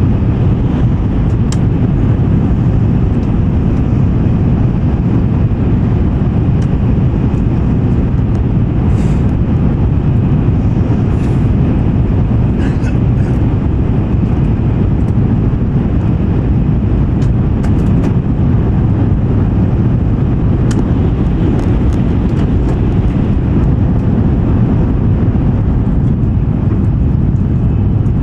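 Steady, loud running rumble inside an N700 series Shinkansen passenger car travelling at speed through a tunnel, with a few faint clicks scattered through it.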